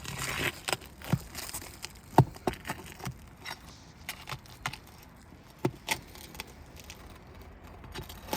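Metal roofing tools scraping and tapping on asphalt shingles as roofing nails are pried out: a short scrape at the start, then a string of sharp clicks and knocks, the loudest a little over two seconds in.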